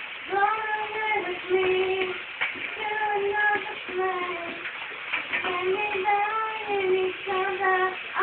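A woman singing a melody in a high voice, moving between held notes of about half a second to a second each.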